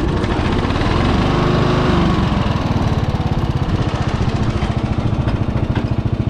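Racing riding mower's engine, just rope-started on its top pulley, running: the revs rise and fall over the first couple of seconds, then settle into a steady, pulsing idle.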